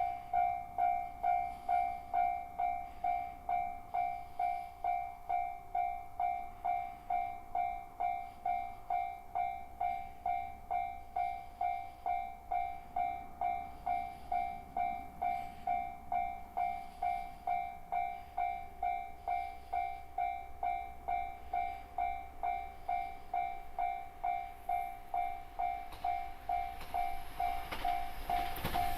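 Japanese railway level crossing's electronic warning bell (JR standard tone) ringing in an even rhythm, just under two dings a second. Near the end the rushing noise of the approaching 383 series limited express train starts to rise under it.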